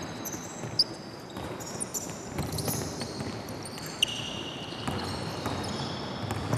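Basketball bouncing on a gym court during a drill, with players' sneakers squeaking in short high chirps and a few sharp knocks.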